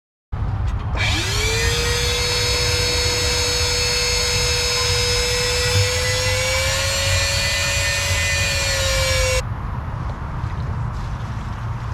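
Handheld electric power tool running: its motor spins up quickly to a steady high whine, holds it for about eight seconds with a slight rise near the end, then stops abruptly about nine seconds in, leaving a low rumble.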